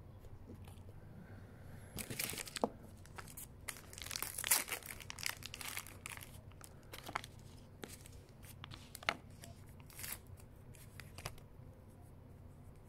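Crinkling and tearing of plastic and paper packaging as injection supplies are unwrapped by hand, in irregular rustling bursts, busiest about two to six seconds in, with a few sharp clicks among them.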